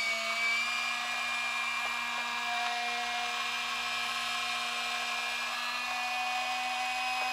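The tipper-bed lift motor and gearbox of a 1/14 WLtoys 14600 RC dump truck whining steadily as it lowers and raises the bed, with the pitch shifting slightly higher about two and a half seconds in.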